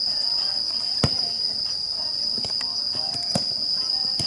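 Insects chirring in a steady, high-pitched, unbroken trill. A sharp thump of the futsal ball being kicked comes about a second in, and a lighter knock follows a couple of seconds later.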